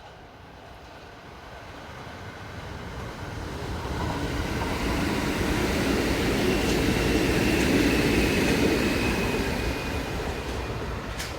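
Kintetsu Kyoto Line electric train approaching and passing, growing steadily louder to a peak about eight seconds in and then fading, with a sharp click near the end.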